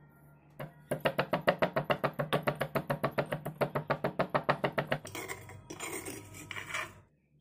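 Stone pestle pounding whole coriander and cumin seeds in a heavy stone mortar, rapid even strokes for about four seconds. A metal spoon then scrapes against the stone for about two seconds while scooping out the crushed spice.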